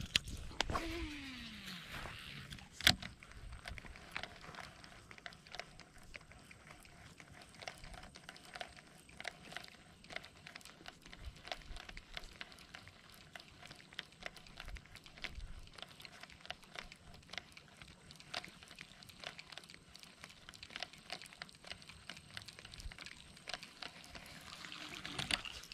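A cast with a fishing reel's spool whirring and falling in pitch over the first two seconds, a sharp click a little under three seconds in, then a long retrieve of a topwater walking lure. The rest is faint, irregular ticking with small splashes and sloshes of water.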